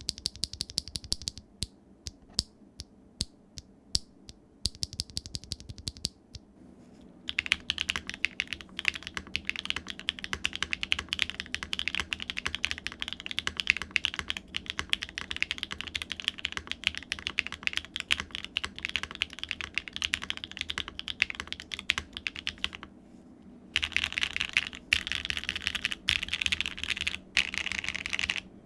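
Mechanical keyboard fitted with Keebfront Bigwig linear switches (PBT bottom housing, HDPE top housing, factory-lubed, 67 g two-stage spring) being typed on. For about the first six seconds come separate single keystrokes. Then fast continuous typing follows, with a brief pause near the end.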